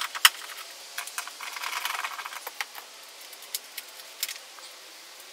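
Scattered clicks and light rattling of hands working under a car seat, unhooking a fitting. The sharpest click comes just after the start, with a busier patch of small rattles about two seconds in.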